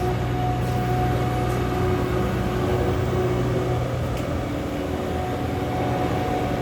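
John Deere 260 skid steer's diesel engine running steadily, with a steady higher whine over the engine note.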